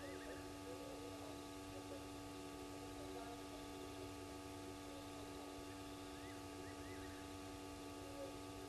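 Faint ambience with a steady electrical hum, and twice a quick run of short chirping calls, once at the start and again near the end.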